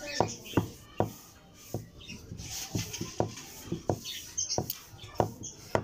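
Wooden rolling pin rolling out dough on a wooden board, with a run of short light knocks, about two a second, as the pin and board clack with each stroke.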